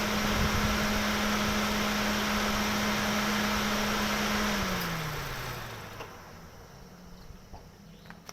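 Car engine running with a steady hum, then shut off about four and a half seconds in: its note slides down and dies away over about a second and a half. A few faint clicks follow.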